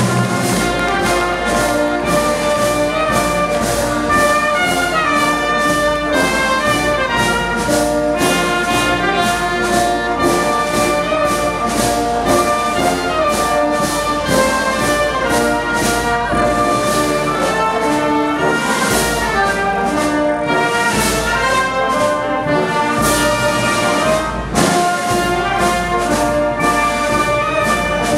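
A town wind band playing, with trumpets, trombones and euphoniums to the fore in full, sustained chords over a steady beat; the sound dips briefly about 24 seconds in before the band plays on.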